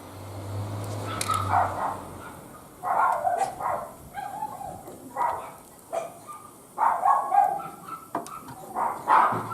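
A dog barking repeatedly, short barks about once a second from about a second in, with a low hum under the first two seconds.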